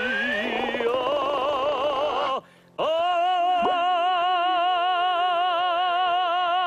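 A male singer in operatic bel canto style holding sustained notes with a wide, even vibrato. There is a shorter note, a brief break about two and a half seconds in, then one long held note.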